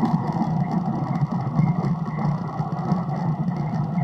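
Playback of a heavily amplified, filtered ambient recording: a steady, loud rumbling hum, heaviest low down, with a thin high tone held steady above it.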